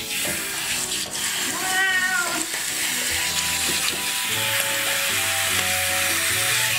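Hand-held shower head spraying water onto a wet cat's fur, a steady hiss, with the cat meowing once about two seconds in.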